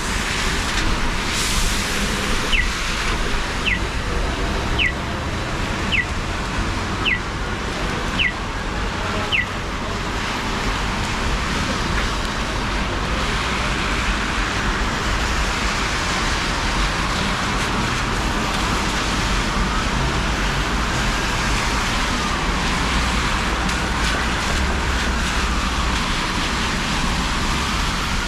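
Steady hiss of wet street traffic in the rain. Early on, seven short falling chirps sound about a second apart, and from about twenty seconds in an ambulance siren wails up and down, growing louder as it approaches.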